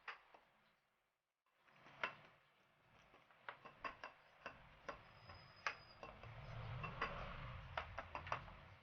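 A spoon clinking and scraping against a mug while stirring the batter: irregular light clicks, with a softer scraping swell near the end.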